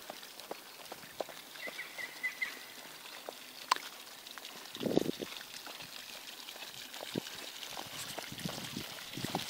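Horse's hooves thudding softly and irregularly on the soft dirt of a paddock as it walks and trots, with a louder, low rustling burst about five seconds in.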